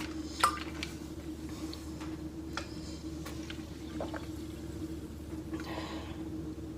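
A person drinking water in gulps, with scattered small clicks and swallowing noises over a steady low hum; a sharp click about half a second in is the loudest sound.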